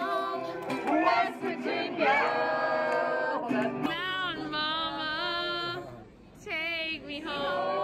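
Music: a song with a singing voice over plucked guitar, the melody sung in phrases with a short break about six seconds in.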